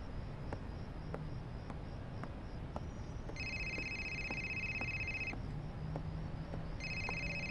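A telephone ringing with an electronic ring: two rings of about two seconds each, the first starting about three seconds in and the second near the end, over a quiet steady background.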